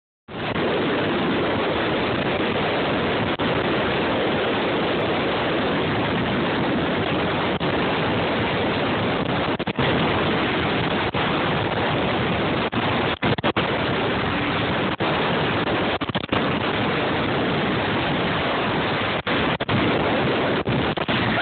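Loud, steady rush of wind on the microphone mixed with engine and water noise aboard a powerboat running at speed, cutting out briefly a few times.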